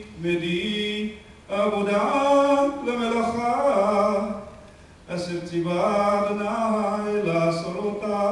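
A man chanting the Hebrew Torah text with traditional cantillation, unaccompanied: long held, ornamented notes sung in phrases, with short breaths between them.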